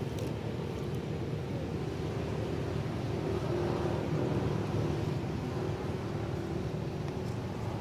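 Steady low rumble of a distant motor vehicle engine, with a faint hum that swells a little in the middle and then fades.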